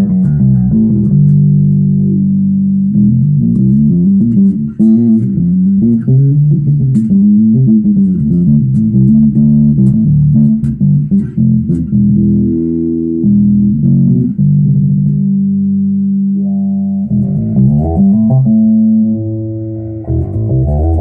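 Zoot Wal-a-Like electric bass played through a Gallien-Krueger amp and 1x12 cabinet: a continuous run of plucked notes, settling into held notes that ring on together near the end.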